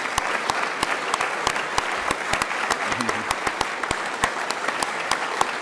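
Audience applauding, with many overlapping claps at a steady level throughout.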